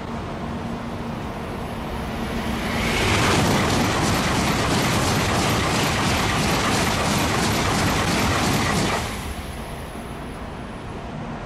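A Shinkansen bullet train passes at speed on the adjacent track. Its loud rushing noise and rhythmic wheel clatter swell in about three seconds in, hold for about six seconds, then cut off sharply.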